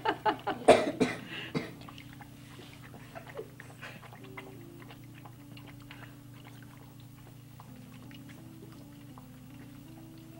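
Basset Hound puppy lapping water from a ceramic dish: a soft run of small wet clicks and laps. People laugh during the first second or two.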